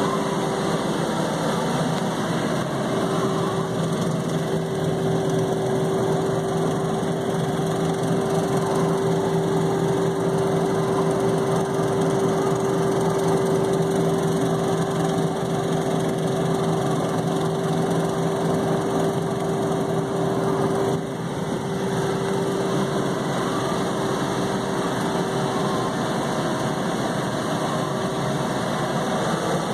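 John Deere 3720 compact tractor's three-cylinder diesel engine running steadily under load while it pulls a rotary cutter (bush hog) through tall grass, heard from inside the cab, with a steady whine over the engine. The sound dips briefly about two-thirds of the way through.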